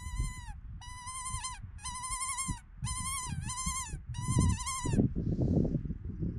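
Mouth-blown predator call, its tone shaped with a cupped hand, sounding as a string of about six short, high, wavering cries in quick succession that stop about five seconds in: a prey-distress call used to bring in foxes and jackals. A low rumble sits underneath.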